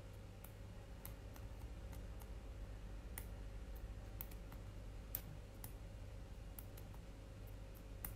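Faint, irregular clicks and taps from fingers handling a smartphone, about a dozen scattered unevenly, over a low steady hum.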